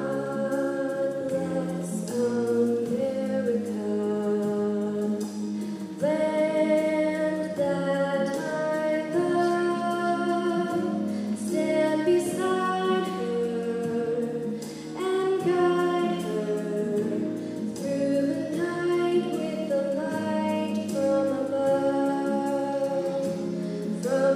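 A young woman singing solo into a handheld microphone, with long held notes, amplified over a PA. Instrumental accompaniment holds low chords beneath her voice.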